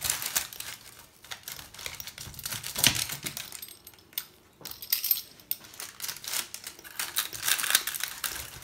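Metal pizza cutter wheel rolling through a thin, crisp-baked pizza crust on parchment paper: rapid irregular crunching and crackling clicks, with a brief pause about halfway and denser cutting near the end.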